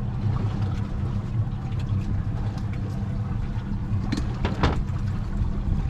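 Boat engine idling with a steady low hum, with two brief noisy sounds a little after four seconds in.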